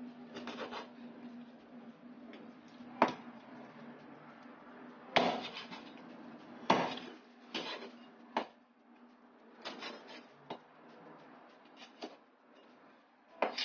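Kitchen knife chopping chicken wings into pieces on a wooden cutting board: about nine sharp knocks at irregular spacing, the loudest about 3, 5 and 7 seconds in.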